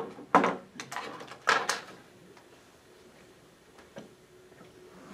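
A handful of sharp knocks and rattles as objects are handled and set down at a wooden lectern, the loudest about half a second and a second and a half in, then quiet with one faint click near four seconds.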